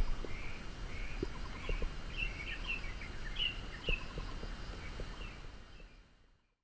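Birds chirping, with many short high calls following each other over a low steady rumble; the sound fades out near the end.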